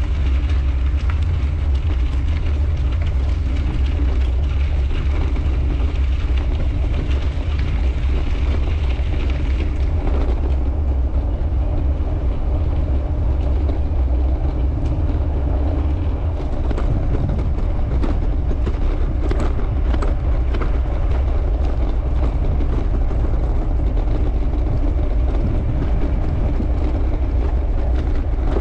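Wind rushing over the microphone and bicycle tyres rolling on the trail: a steady low rumble throughout, with the higher gravel hiss dropping away about ten seconds in as the surface turns to pavement, and a few light knocks later on.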